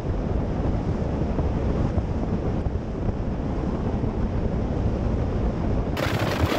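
Wind buffeting the microphone and water rushing past the hull as a fishing boat runs at speed across open water. About six seconds in, the noise turns brighter and hissier.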